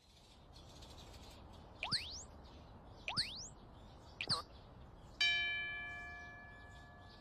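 Animated-cartoon sound effects over a faint hiss: three quick rising zips about a second apart, then a single bright bell-like ding that rings out and fades over about two seconds.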